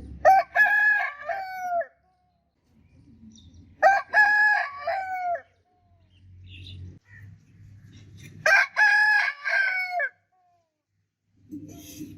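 A rooster crowing three times, about four seconds apart. Each crow lasts about a second and a half and falls away at the end, with a low rumble between the crows.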